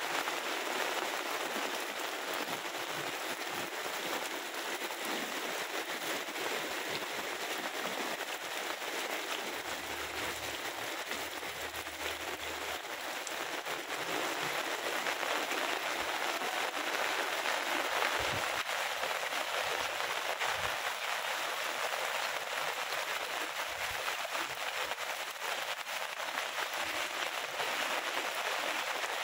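Heavy rain falling steadily, a dense even hiss of rain on surfaces.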